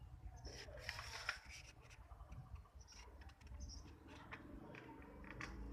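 A sheet of paper being handled and folded: soft, irregular crinkles, scrapes and small taps of the paper being creased.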